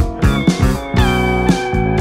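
Instrumental background music with a steady beat, about two beats a second, under held notes that now and then slide in pitch.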